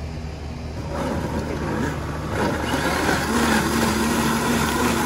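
Vita-Mix countertop blender motor starting up about a second in and rising in pitch as its speed dial is turned up, then running steady and louder, puréeing roasted tomatoes and peppers with a little water into salsa.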